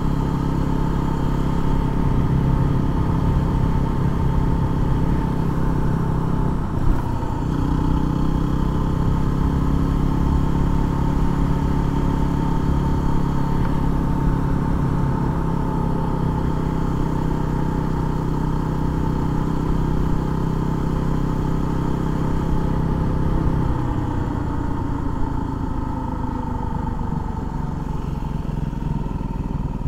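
Yamaha WR250R's single-cylinder four-stroke engine running at a steady cruise, picked up by a helmet-mounted microphone. A brief dip about seven seconds in, and the engine note falls away over the last six seconds.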